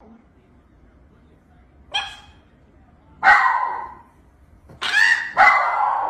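Small dog vocalizing: a short yelp about two seconds in, then three longer, drawn-out yowling barks, the last two back to back near the end.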